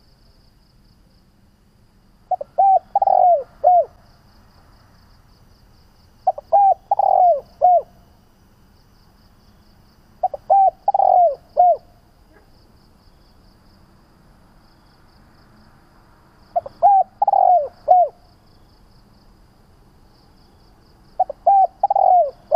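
Spotted dove cooing: a short phrase of a few coos repeated five times, about every four seconds.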